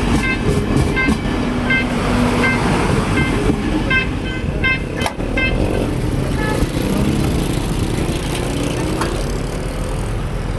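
Railway level crossing warning bell ringing about twice a second over a steady low rumble of rail traffic; the bell fades out about two-thirds of the way through.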